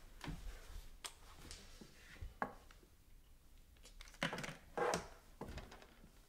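Faint handling noises of small objects being picked up and moved: scattered clicks and short rustles, with one sharp click about halfway through and a louder scraping rustle between four and five seconds in.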